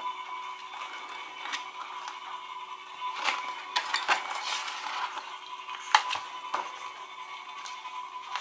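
Pages of a glossy spiral-bound book being flipped by hand: paper rustling, with a flurry of riffling in the middle and several sharp taps and clicks, the loudest about six seconds in. A faint steady high tone runs underneath.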